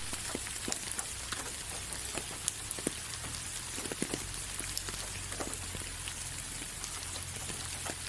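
Steady rain falling: an even hiss with many scattered individual drops ticking on a surface.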